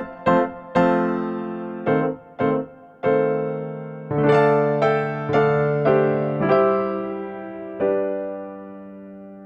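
Background music: a melody played on an electric piano, separate notes struck and left to die away, the last one held and fading out near the end.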